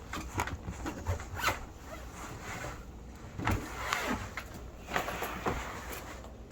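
Zipper on a hard-shell suitcase being pulled open, with scattered clicks and knocks from handling the case.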